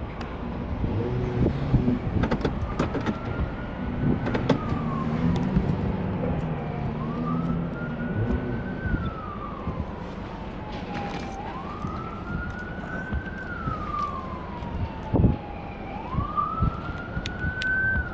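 A siren wailing, its pitch rising and then slowly sliding down about every four to five seconds, over a steady rumble with scattered knocks.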